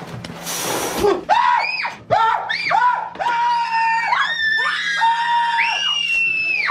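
High-pitched screaming: a string of short screams that gives way, about three seconds in, to long held, overlapping screams. A brief burst of noise comes just before the screaming starts.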